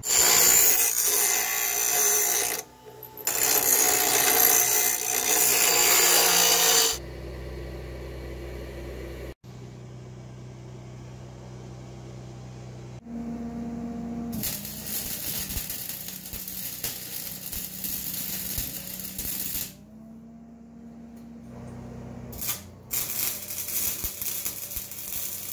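Arc welding on steel, crackling in several bursts of a few seconds each with pauses between, as the feet of a transmission mount are tacked and welded on.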